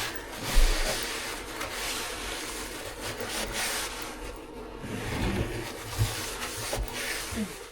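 A utensil scraping and rubbing against dishes, with a few dull knocks, as food is dished up.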